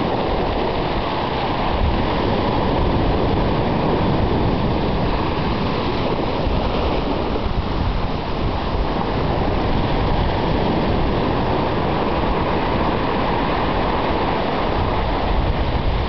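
Ocean surf washing in over black lava rocks and sand and draining back: a steady rushing wash of water and foam.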